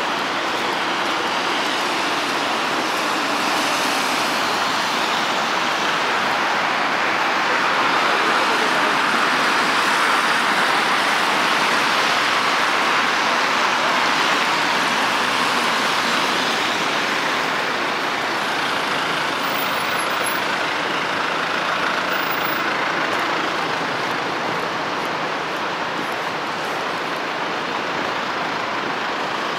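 Road traffic on a wet road: a steady hiss of tyres on wet asphalt, swelling in the middle as a truck passes close by.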